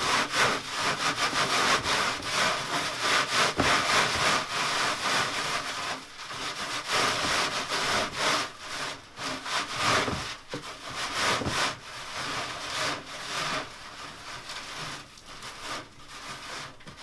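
Gloved hands rubbing dried nettles back and forth over a wire-mesh screen, a dry scratchy rustle in quick repeated strokes. It is loudest in the first half and softer after about six seconds. The rubbing crumbles the leaves through the mesh and leaves the woody stems behind.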